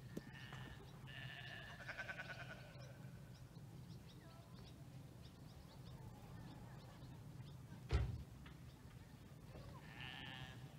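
Wavering animal calls: one about a second in that lasts a couple of seconds, and a shorter one near the end, over a low steady hum. A single thump about eight seconds in.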